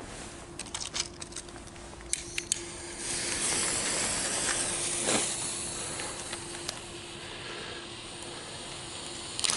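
A few sharp clicks, then a lit firework fuse fizzing with a steady hiss. Right at the end a small fountain firework catches and starts spraying with a louder hiss.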